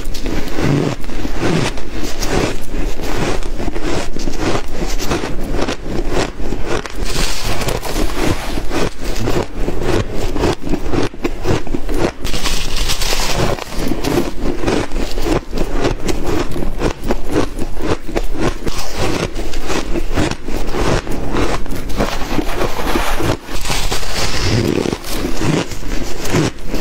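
Frozen shaved ice being crunched and chewed, a loud, unbroken run of crisp crunches.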